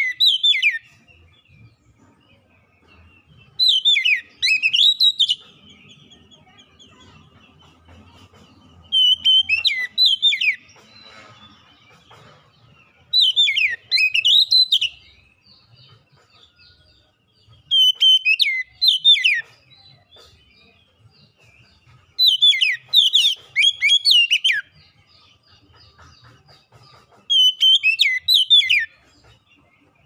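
Oriental magpie-robin (kacer) singing in short phrases of clear whistled notes that sweep up and down. Each phrase lasts about a second and a half and comes every four to five seconds, seven times over.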